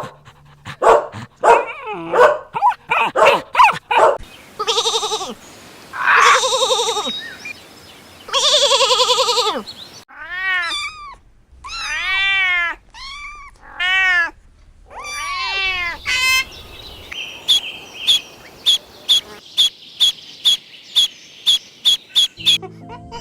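A sequence of different animal calls: short quick calls at the start, then three long drawn-out cries, then five rising-and-falling cries, and finally a fast even run of short chirps.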